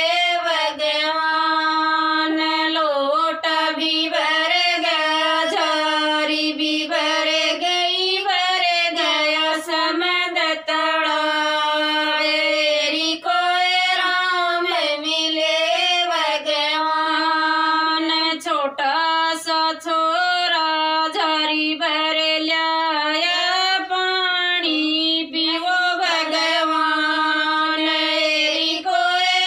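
Women singing a Haryanvi devotional bhajan together, a continuous melody with short breaths between phrases.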